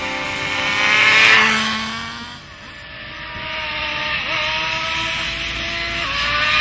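Two-stroke nitro glow engine (Kyosho GX21, 3.46 cc) of a 1:7-scale radio-controlled Ferrari F2007 model passing close by, its pitch falling as it goes past about a second in. Then a high engine note climbs steadily, dipping in pitch twice and climbing again.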